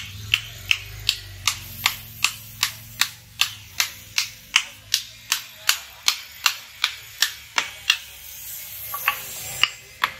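Small hammer tapping the end of a billhook's wooden handle at about three sharp blows a second, seating the handle on the blade's tang. The blows stop about eight seconds in, followed by a few scattered taps.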